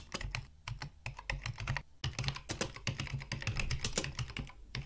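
Rapid typing on a computer keyboard: a fast, irregular run of key clicks, with a short pause about two seconds in.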